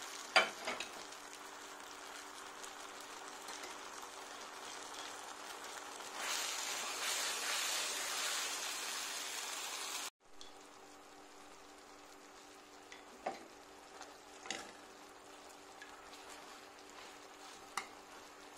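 Beef steak sizzling in a frying pan as a flour-and-water sauce simmers and bubbles around it. A sharp clink comes right at the start and a few light taps follow later. The sizzle swells for a few seconds, cuts off suddenly about ten seconds in, and then continues more quietly.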